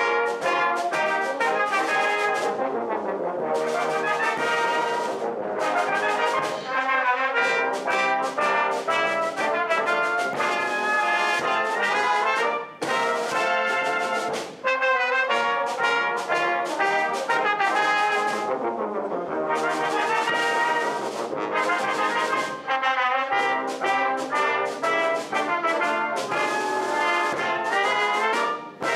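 Brass band playing a march, tubas, euphoniums and cornets together in full chorus, with regular percussion strokes keeping the beat and short breaths between phrases.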